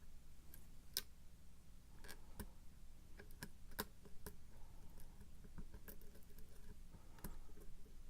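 Faint, irregular metal clicks and ticks of a hybrid lock pick lifting the pins of a pin-tumbler lock held under tension.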